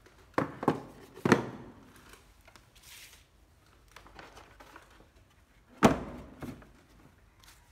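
A few sharp hard-plastic knocks and clacks from a Ryobi 12V cordless drill and its plastic carrying case being handled: three in the first second and a half, two more about six seconds in, with light rustling between. The drill's motor is not running.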